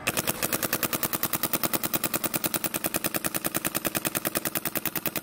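Shocker RSX paintball marker firing a fast, even string of shots, roughly a dozen a second, each a sharp pop of released air.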